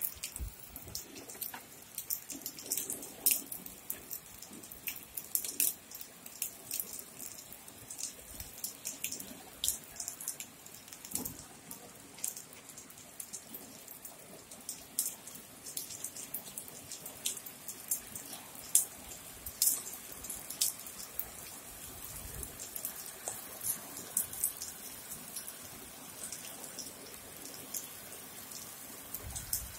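Rain falling, with many individual drops tapping sharply close by over a soft steady hiss.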